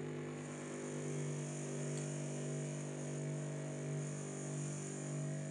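Small bench grinder's electric motor running at speed with a steady hum while rusty pliers are held against its wheel to clean off the rust.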